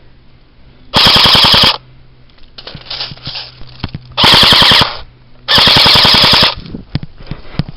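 Airsoft rifle firing three rapid full-auto bursts close to the microphone, each under a second long, the last one the longest.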